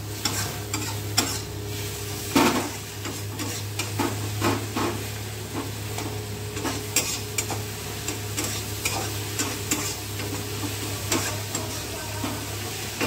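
Long metal spoon scraping and clinking irregularly against a black kadai while stirring onions and tomatoes frying in oil, with the oil sizzling; the loudest scrape comes about two and a half seconds in. A steady low hum runs underneath.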